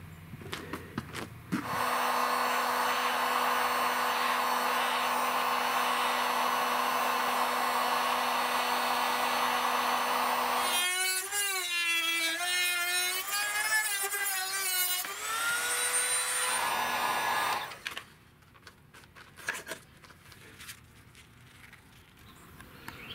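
A handheld electric rotary tool (Dremel-type) runs with a steady whine from about two seconds in. Then, for about five seconds, its pitch drops and wavers as it cuts a strip of clear plastic. It stops about 17 seconds in, and a few light handling clicks follow.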